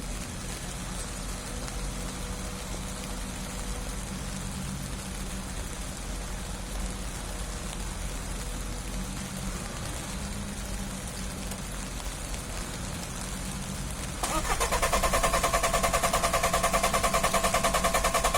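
A low steady hum, then about 14 seconds in a starter motor begins cranking the engine with a fast, even, rhythmic whirr that does not catch: a hard start.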